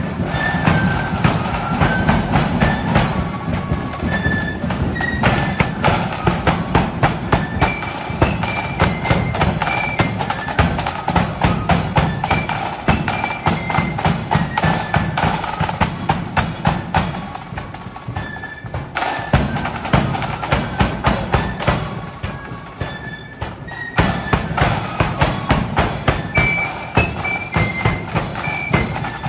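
Marching flute band playing: flutes carry a melody of short notes over rapid snare drum strokes, bass drum and cymbals.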